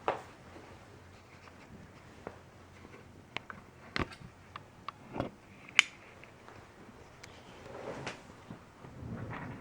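Handling noise: scattered clicks and light knocks as objects are moved and set down, with one sharp click about six seconds in and a soft rustle near the end.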